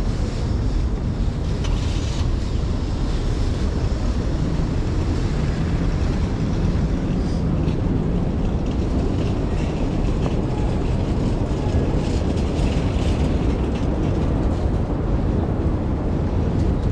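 Steady low rumble of city street traffic, with a few faint clicks and knocks on top.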